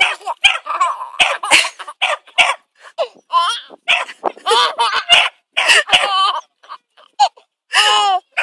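Small dog barking over and over in short, high barks, about two a second, with brief pauses between runs.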